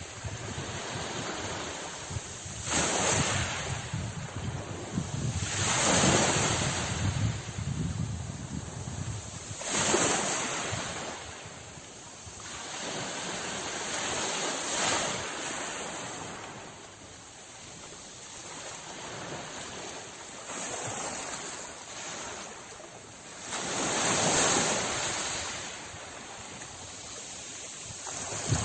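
Sea surf: waves breaking and washing in slow surges, with about five louder swells several seconds apart over a steady rush of water.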